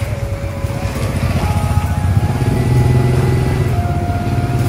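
A small engine running steadily, its rapid low pulsing rising slightly partway through, with a melody of held notes playing over it.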